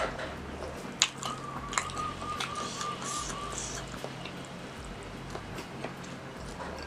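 Close-miked chewing of soft spicy meatballs and rice, with wet, squishy mouth sounds and a few sharp clicks about one and two seconds in.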